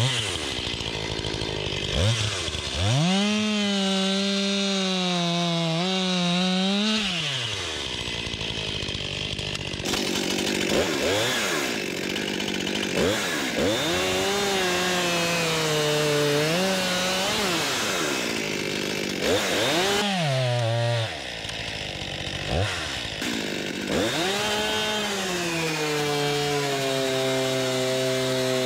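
Stihl MS 261 C-M two-stroke chainsaw bucking a log: the engine revs up and drops back again and again as the throttle is squeezed and released, with the chain cutting through wood, and runs at a steady high pitch near the end.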